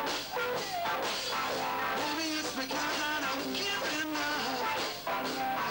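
Live rock band playing, with a man singing lead into the microphone over electric guitar and the rest of the band.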